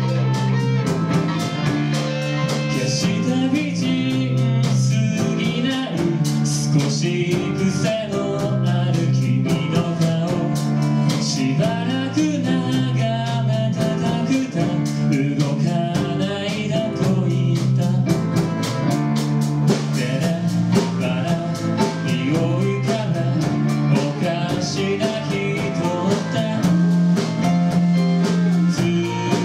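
A rock band playing live: electric guitars, bass, keyboard and drums keeping a steady beat, with a singer at the microphone.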